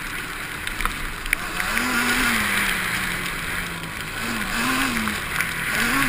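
Quad bike engine running under way on a muddy trail, its pitch rising and falling several times with the throttle, over a steady rush of wind and tyre noise with scattered sharp clicks.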